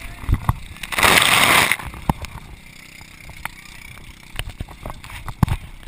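Body-worn camera knocking and rubbing as its wearer moves, with scattered short thumps and a loud rush of noise lasting under a second, about a second in.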